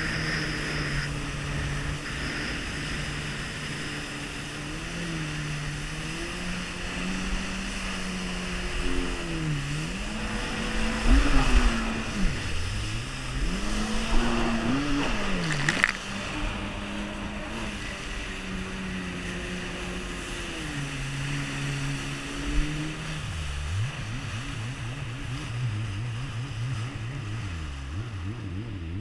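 Jet ski engine running under way, its pitch rising and falling with the throttle, with rushing water over it; the revs swing hardest and loudest in the middle, then drop to a lower, even running near the end as the jet ski slows.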